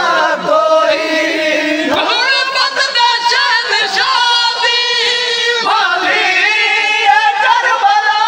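Men singing a Saraiki noha, a Shia mourning lament, several voices at once in long held notes.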